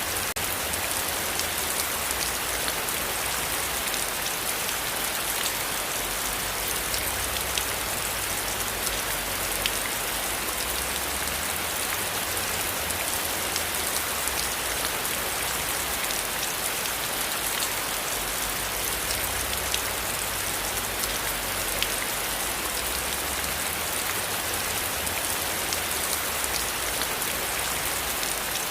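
Steady rain falling on a surface, a dense even hiss with many individual drops ticking through it.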